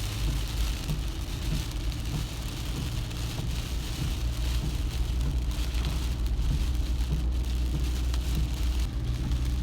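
A car driving in the rain: steady low engine and road rumble under the hiss and patter of rain on the car.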